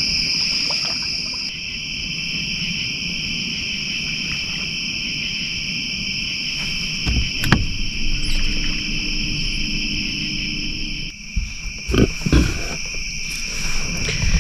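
Night insect chorus: a steady, continuous high-pitched trilling over a low rumble. A sharp knock comes about halfway through, and a few more knocks follow near the end.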